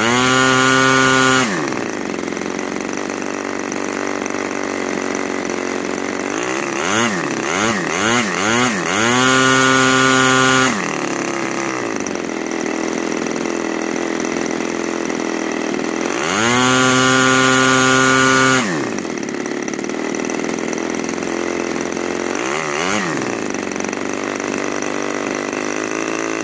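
RCGF 15cc single-cylinder two-stroke gasoline model-aircraft engine running on a test stand, mostly at a steady idle. It is opened up to full throttle three times: at the start, again about seven seconds in after a few quick revs, and around sixteen seconds in. Each time it holds high for a second or two and then drops back to idle.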